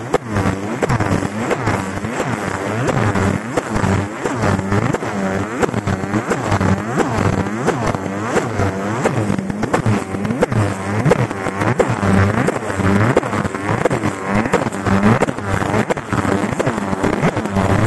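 A 50 W Raycus fiber laser marking machine deep-engraving brass, its galvo scanner head making a dense, warbling buzz of quickly rising and falling tones as it sweeps the beam.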